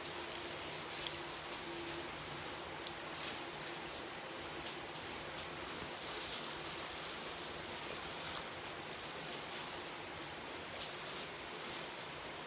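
Chewing crispy fried chicken, with faint crunches and mouth clicks here and there over a steady hiss.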